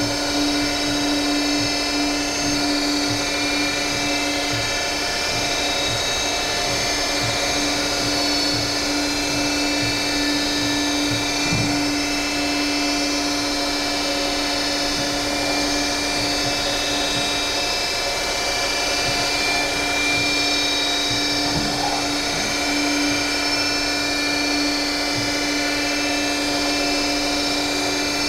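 Emcoturn 140 CNC lathe running a program under power, a steady whine of several fixed pitches that does not change as the slides feed slowly.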